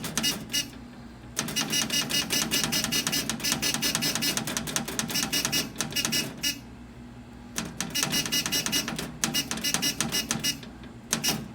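Fire alarm notification appliance sounding a rapid pulsing buzz-tone that stops and restarts several times, with the longest stretch in the middle.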